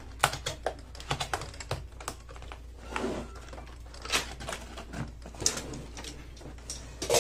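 Hands handling a cardboard product box: a quick run of light taps and clicks, then scattered scuffs and knocks of cardboard as the box is turned over and gripped to be opened.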